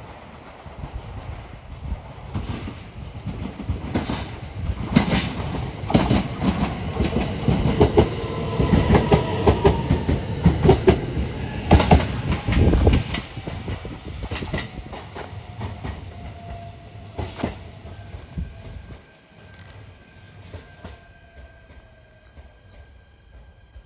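Train passing on the rails, its wheels clicking in quick runs over the rail joints, building up to a loud peak about halfway through and then fading away.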